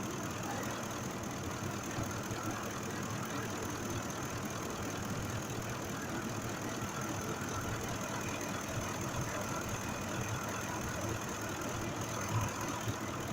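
2005 Ford F-150's 5.4-litre V8 idling steadily. Cylinder 2 is no longer misfiring since its faulty injector was dealt with; a slight misfire remains on cylinder 3, which the mechanic suspects is a spark plug.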